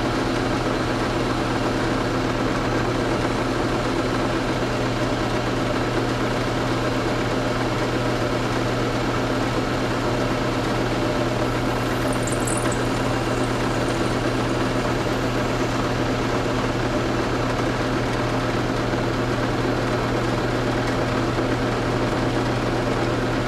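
Motor of a round-column drill press running with a steady hum while it drills a hole in a block of aluminium.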